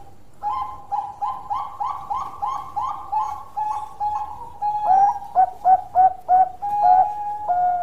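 Zebra dove (Bangkok perkutut) singing a long phrase. It opens with a quick run of about a dozen short cooing notes, then moves to slower, louder coos that dip in pitch, and ends on a longer held note.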